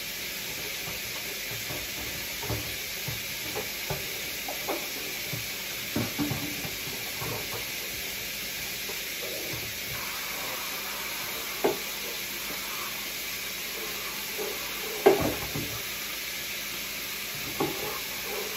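Meat sizzling in a frying pan on the stove, a steady hiss, with scattered knocks and clinks of dishes being handled, the loudest about fifteen seconds in.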